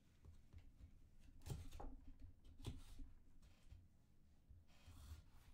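Near silence, with a few faint rustles and light taps of trading cards being handled.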